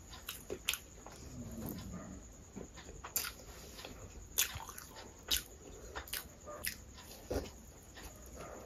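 Close-up eating sounds: chewing with wet mouth and lip smacks, heard as an irregular string of short sharp clicks.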